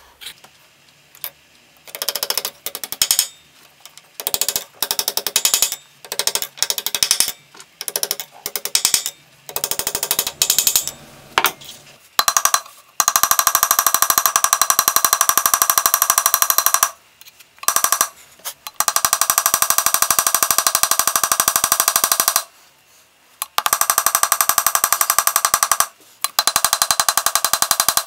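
Ball-peen hammer tapping rapidly on the metal pins of a wooden knife handle resting on a steel anvil, peening the pins over to fix the handle scales. The taps come in short runs at first, then in long fast runs of several seconds with brief pauses.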